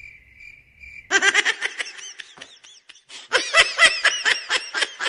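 High-pitched giggling laughter in two rapid bursts, starting about a second in and again after a short gap, following a faint pulsing tone.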